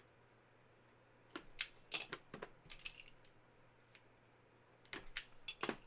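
Faint handling of a trading-card box and its packaging: two flurries of crisp clicks and crackles, one about a second and a half in and another near the end.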